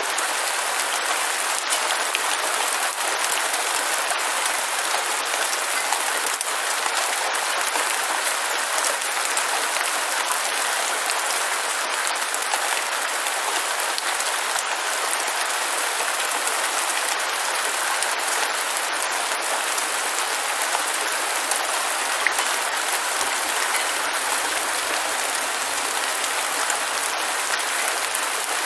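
Steady rain falling, a dense even hiss that holds without breaks.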